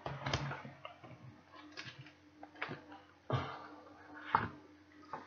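A handful of light clicks and knocks, spread out, with faint rustling: handling noise from someone moving close to the microphone and picking things up.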